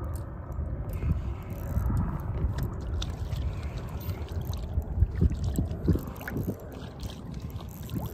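Water lapping and splashing against a float tube, with wind buffeting the microphone; a few louder splashes come about five to six seconds in.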